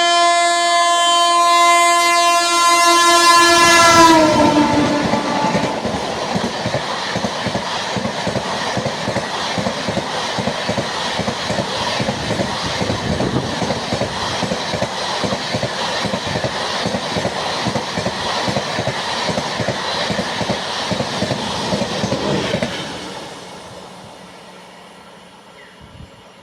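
An Indian Railways locomotive's horn sounding loudly and dropping in pitch about four seconds in as the train passes close by, then the coaches rushing past with fast, continuous wheel clatter, which fades away near the end.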